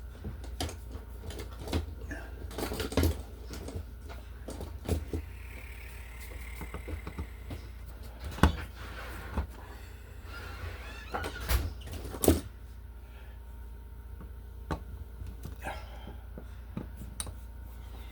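Scattered clicks and knocks of hand tools and parts being handled while working on a wall outlet, the two loudest knocks about eight and twelve seconds in, over a steady low hum.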